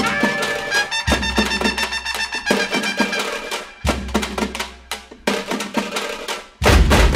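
Background music: a busy percussive track with pitched instrument notes and deep bass hits every few seconds.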